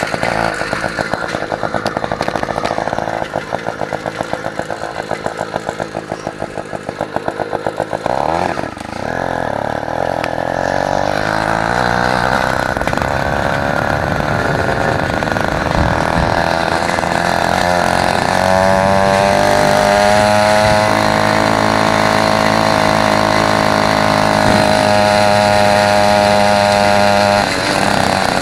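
Small two-stroke engine on a motorized Huffy bicycle running while the bike is ridden: a fast, pulsing chug at first, then about eight seconds in it picks up to a steadier, higher drone that climbs again around eighteen seconds and holds.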